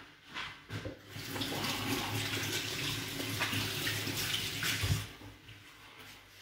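Kitchen tap running as hands are rinsed under it, a steady rush of water that starts about a second in and is shut off about five seconds in.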